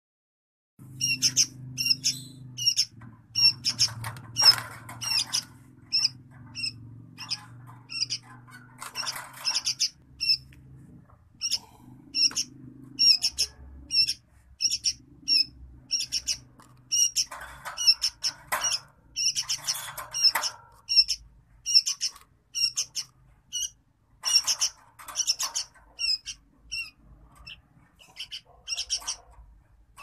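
Sooty-headed bulbul calling over and over with short, sharp squawks, about one or two a second and sometimes in quick runs. The calls are begging calls from a bird gaping for hand-offered feed.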